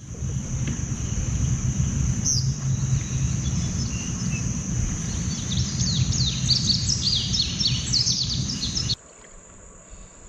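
Low, even rumble of wind and rain noise on the microphone, with a steady high insect trill behind it and a bird chirping rapidly from about halfway in. The rumble cuts off abruptly near the end, leaving the insect trill.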